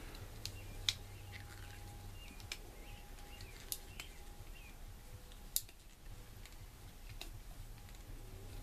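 Scattered sharp metallic clicks from hand-tool work on a refrigerant filter drier being cut open, with a few faint high chirps, over a low steady hum.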